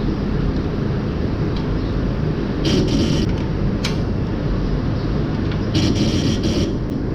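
Steady low machinery drone in a milking barn, with two short hissing bursts, one about three seconds in and a longer one near six seconds, and a sharp click between them.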